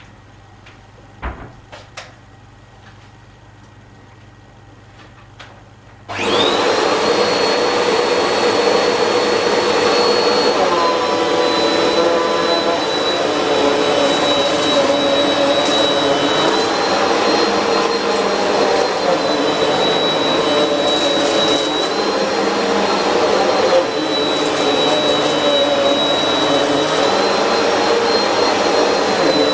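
A few clicks, then a Simple Value bagless vacuum cleaner switches on about six seconds in and runs steadily with a high motor whine over dense noise, the pitch dipping slightly now and then. It is being worked over shag carpet on a fresh drive belt, with the brushroll spinning.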